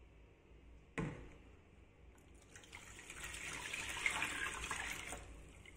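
Warm milk poured from a stainless-steel saucepan into a plastic tub of dry ingredients: a steady splashing pour that builds over about two and a half seconds, peaks and then stops. A single knock comes about a second in.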